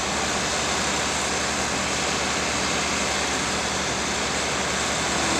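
Diesel engines of a wheel loader and a tractor running as the loader dumps a bucket of feed into a mixer wagon: a steady low pulsing engine drone under a broad, even rushing noise.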